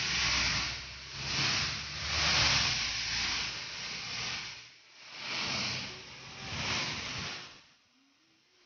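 Heavy rain hissing, swelling and fading every second or so, with a low rumble beneath it for the first few seconds; it falls away near the end.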